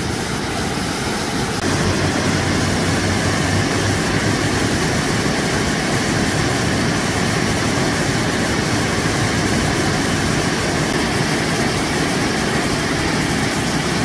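Waterfall rushing: heavy white water pouring over a rock ledge into a pool, a loud steady rush that grows a little louder about a second and a half in.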